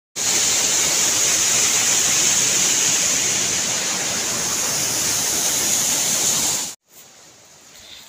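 Steady rushing of flowing water over rocks, a loud even hiss that stops abruptly near the end, leaving only faint background.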